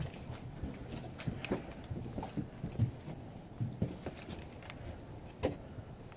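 Footsteps of an airsoft player moving over hard ground, irregular thuds with gear knocking about. A couple of sharper clicks stand out, about one and a half seconds in and near the end.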